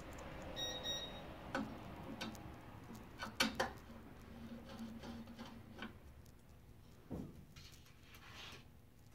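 Small screws and a screwdriver clicking and tapping against metal as the medium screws are set into the parallel-light module's mounting holes inside an EPAX X1 resin printer. The clicks are scattered, the loudest about three and a half seconds in and another near seven seconds.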